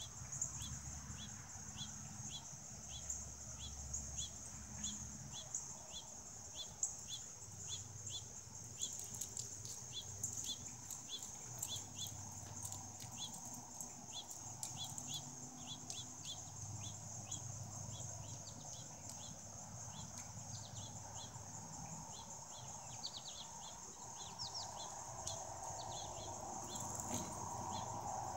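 Outdoor insect chorus: a steady high buzz with a short chirp repeating about twice a second, which changes to quicker rising chirps near the end, over a low rumble.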